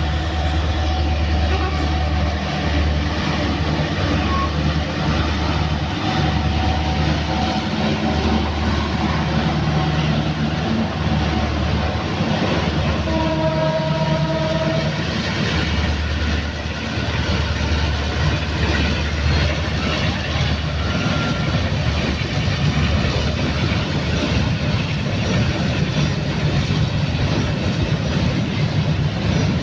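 Coal freight train passing: the diesel locomotive's low engine rumble and the wagons running on the rails, loud and continuous.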